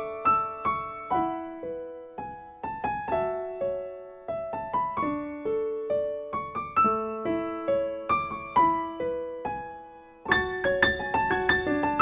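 Casio Privia PX-160 digital piano played with both hands in its grand piano voice, a flowing run of notes that each ring and die away. The playing turns softer in the middle, then grows louder again after a short lull about ten seconds in.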